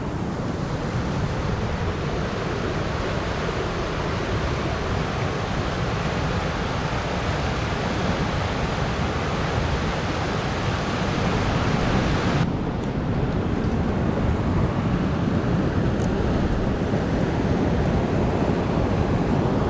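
Water pouring over a low dam in a steady rushing roar. About two-thirds of the way through it cuts abruptly to a duller steady rumble with less hiss.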